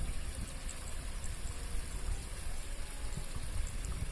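Steady outdoor background noise: an even hiss with wind rumbling unevenly on the microphone, and no train passing.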